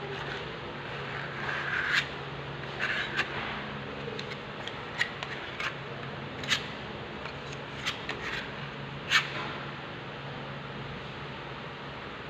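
Close handling noise: scattered short scrapes and clicks at irregular intervals, over a steady low hum.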